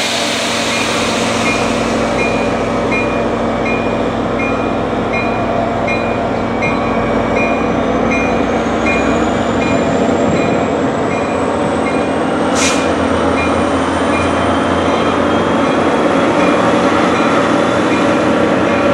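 NJ Transit bilevel passenger train rolling past on the near track, with steady wheel-and-rail rumble. A rapid repeating beep sounds for the first several seconds. A high thin whine rises steadily in pitch through the second half, and there is one sharp click about two-thirds of the way through.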